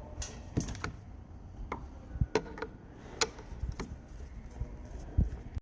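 Irregular clicks and light knocks from a Snap-on digital multimeter and its magnetic backing plate being handled.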